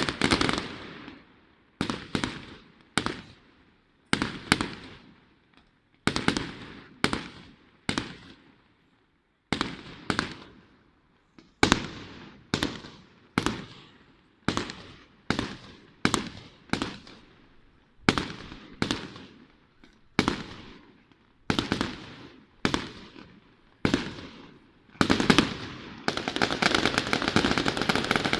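Fireworks display: aerial shells bursting one after another, about one bang a second, each with a trailing echo. Near the end the bangs give way to a dense, continuous crackling.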